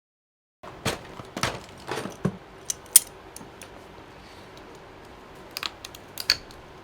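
Apple keyboard being handled and taken apart: a run of sharp clicks and small knocks of plastic and metal parts and tools, with a second cluster near the end, over a low room hum.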